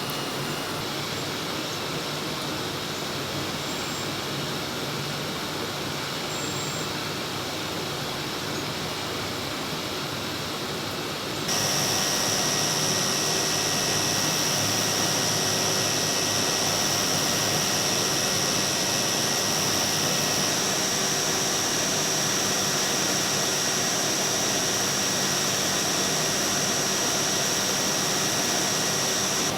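Button-machining machines running steadily with a noisy mechanical hum. About a third of the way in the sound jumps louder and a steady high-pitched whine joins it.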